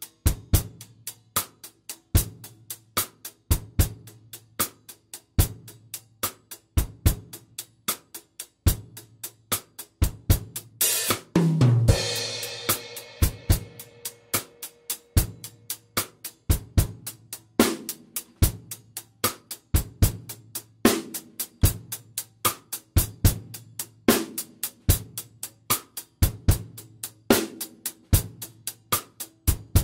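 Drum kit played alone with no backing track, a steady groove of hi-hat, snare and bass drum. About 11 seconds in a fill leads into a crash cymbal that rings on for several seconds before the groove goes on.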